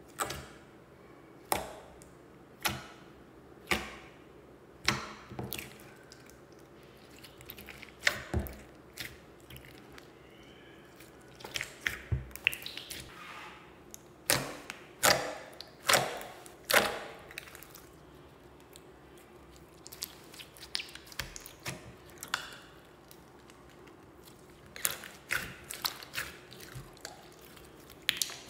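Hands squishing and kneading a large mass of mixed slime, giving irregular wet squelches and sharp sticky pops as the slime is pressed and pulled apart. The pops come about once a second at first and bunch together more closely about halfway through.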